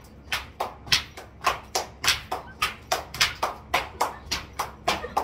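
A steady run of sharp claps, about four a second.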